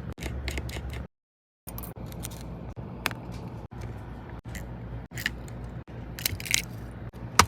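Small clicks and light scrapes of hand tools working inside an opened iPhone 12 Pro Max, over a steady low hum. The sound drops to dead silence at edits, about a second in and again near the end.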